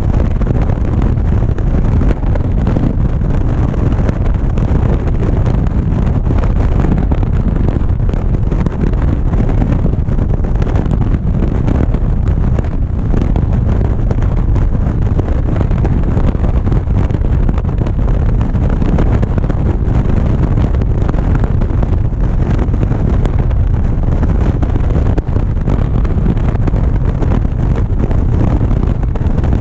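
Motorcycle cruising at highway speed: a steady, loud rush of wind buffeting the microphone over low engine and road rumble.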